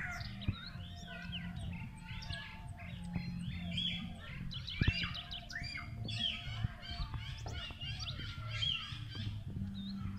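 Small birds chirping and twittering all through, in many short, quick, overlapping notes, over a steady low hum. There is a sharp click about five seconds in.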